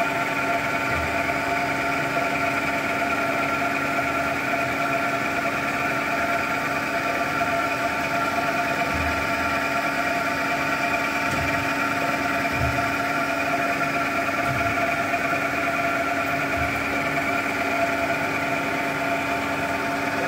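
Bomar STG 260 GA automatic metal-cutting bandsaw running: a steady machine hum with several constant tones while its feed vise travels along the roller table, with a few soft low knocks scattered through.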